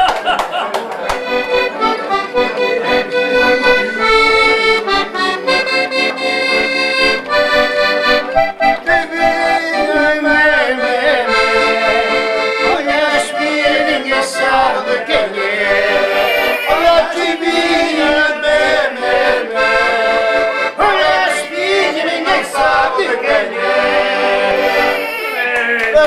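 Two button accordions, one a red Hohner, playing a traditional Portuguese tune together, with notes changing steadily throughout.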